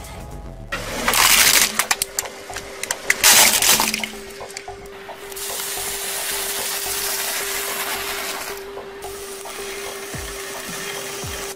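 A car tyre rolling over and crushing brittle objects, a plastic toy pole and a stack of waffle ice-cream cones: loud bursts of cracking and crunching about one and three seconds in, then a longer stretch of steady crackling. Near the end a toy rocket firework under the wheel sprays sparks.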